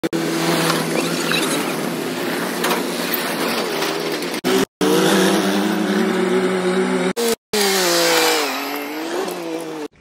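Heavy diesel engines of a JCB 3DX backhoe loader and a Sonalika tractor running under load. The sound cuts out abruptly twice, and near the end the engine pitch dips and then rises again.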